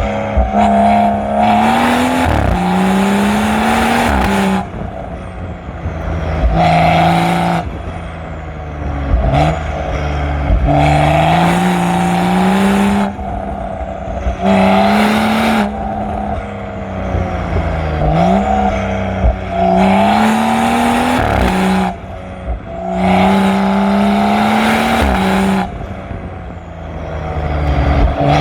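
Exhaust of a BMW M135i's turbocharged N55 straight-six, decatted and with the middle silencer deleted, heard close at the tailpipe as the car is driven hard. It pulls up through the revs about seven times, each pull rising in pitch and getting louder, then drops away at gear changes and lifts off the throttle between corners.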